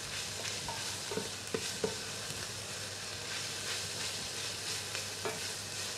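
Chopped onions, garlic and peppers sizzling in hot olive oil in a stainless steel pot as chopped tomatoes go in and are stirred with a wooden spoon, with a few faint knocks of the spoon against the pot.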